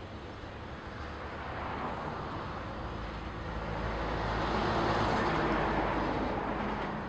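Steel wheels of double-stack intermodal well cars on a passing freight train, rolling along the rails in a steady rushing clatter that swells to its loudest about five seconds in.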